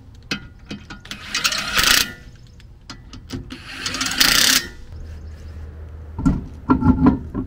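Cordless impact wrench running the bolts of a 25 mm wheel adapter down onto a car's hub, in two short bursts about two and a half seconds apart. Near the end, a few knocks as the wheel is lifted onto the adapter.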